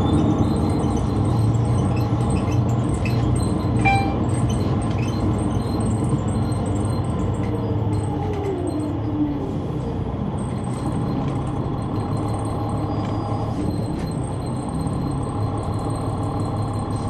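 Caterpillar C-9 diesel engine of a 2004 Neoplan AN459 articulated transit bus, heard from on board, running with a steady drone. A falling whine comes about eight seconds in, and a short clink about four seconds in.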